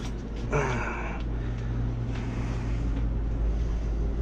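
Steady low hum of a running air-conditioning system, with a brief scraping or rattling sound about half a second in.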